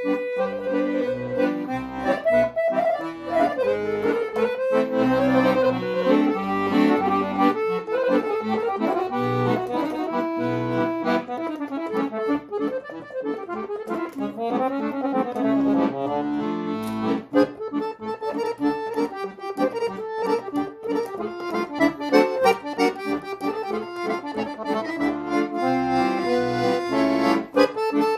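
Weltmeister piano accordion played solo: a quick, busy melody over sustained lower notes, a medley of traditional tunes.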